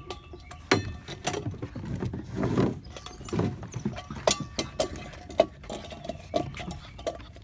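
Golden retriever puppies scuffling over a small stainless steel pail: irregular clanks and knocks of the metal pail mixed with the clatter of paws scrabbling on wooden deck boards.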